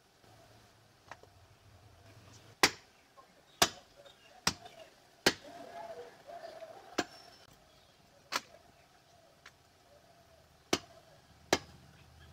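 Heavy cleaver chopping a goat leg on a wooden tree-stump block: eight sharp chops at uneven intervals of about a second, with a longer gap before the last two.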